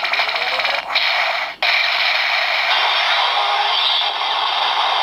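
Electronic sound effect from a Kamen Rider Zero-One DX toy rider key, played through the toy's small speaker. It is a dense, hissing, noise-like effect with no bass, with two brief cutoffs in the first two seconds.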